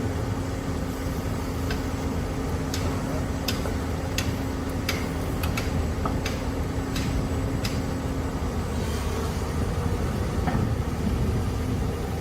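Heavy excavator's diesel engine running steadily with a low hum, and a series of sharp metallic clicks or clanks roughly once or twice a second that stop about two-thirds of the way through.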